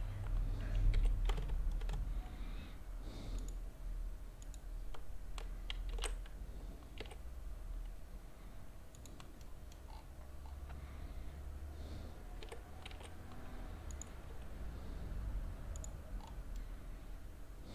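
Computer keyboard and mouse clicking at irregular intervals as shortcut keys and buttons are pressed, over a low steady background rumble.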